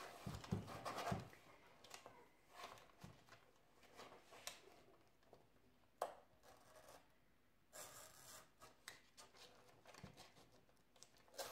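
Craft knife cutting brown paper along the inside edge of a wooden drawer: faint, intermittent scratching with a few small clicks.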